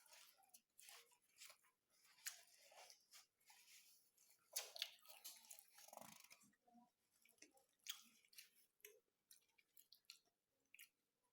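Faint chewing of a soft mouthful of Arabic bread with egg omelette and mayonnaise: quiet, irregular wet smacks and mouth clicks.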